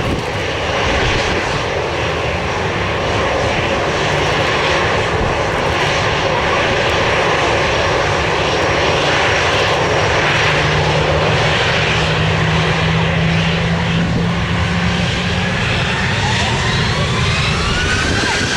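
Four-engined Airbus A340 jet engines running loudly and steadily. Near the end a rising whine climbs as the engines spool up to takeoff power.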